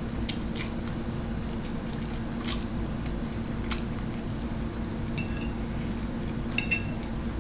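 A metal fork clicking against a plate of noodles, about half a dozen light clicks, the last few ringing briefly, over a steady low hum.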